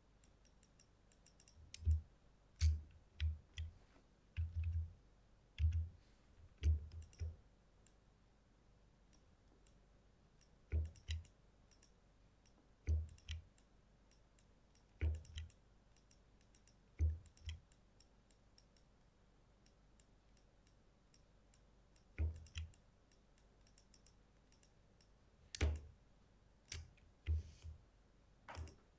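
Computer mouse clicking irregularly, singly and in quick pairs, each click with a dull thump, during clone-stamp retouching. The clicks come in clusters, with a quiet stretch of a few seconds past the middle.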